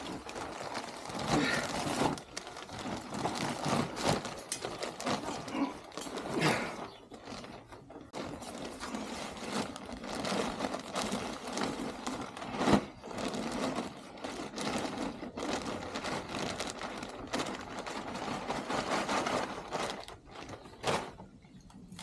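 Compost and garden soil being emptied from plastic bags into a raised bed and spread by hand: continuous rustling and scraping of the soil with crinkling of the plastic bags, and one sharp knock about halfway through.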